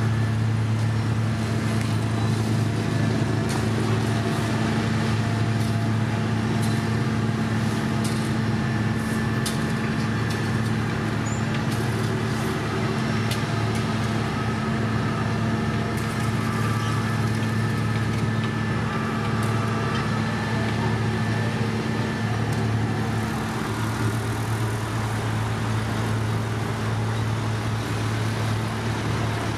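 Heavy diesel road-building machinery running steadily: a constant low engine hum that holds the same pitch throughout, with scattered light clicks and clatter over it.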